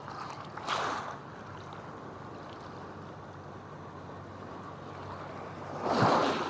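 Wind and surf on a rocky seashore: a steady rush, swelling louder twice, about a second in and again near the end.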